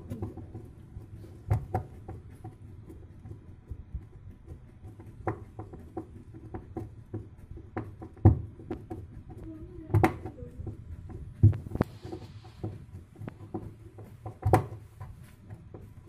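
Metal screwdriver and bolt knocking and clicking against the plastic drive pulley as it is bolted onto the new washer shaft of a twin-tub washing machine. About six sharp knocks at irregular intervals, with smaller clicks between.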